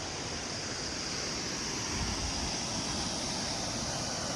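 Steady outdoor rushing noise with wind buffeting the microphone, under a constant high-pitched drone of insects.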